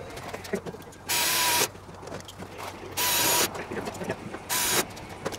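An air tool, such as an air drill, runs in three short bursts about a second and a half apart: a loud hiss with a steady whine in it. The last burst is the shortest. Small clicks of handling come between the bursts.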